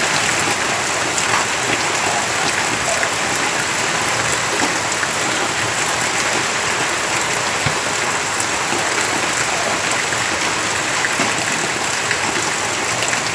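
Rain falling with a stream of runoff pouring off a roof edge: a loud, steady rushing hiss with scattered drop ticks.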